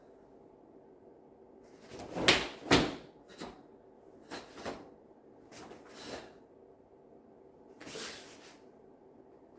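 Karate gi snapping and swishing with each block and strike of the Bassai Dai kata: two loud sharp snaps about two and three seconds in, then quieter snaps every half second to a second, and a longer swish near the end.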